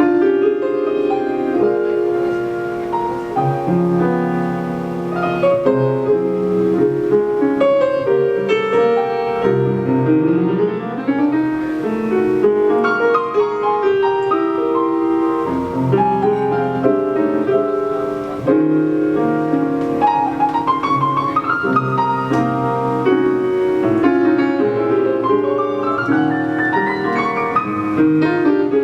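Piano-led instrumental music with sustained chords and a moving bass line, and quick rising piano runs about two-thirds of the way through and again near the end.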